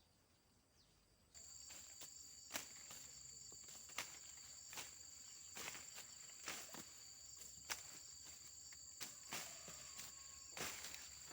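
A steady, high-pitched chorus of insects, such as crickets or cicadas, comes in abruptly about a second in. Over it are irregular dry rustling crunches, roughly one or two a second.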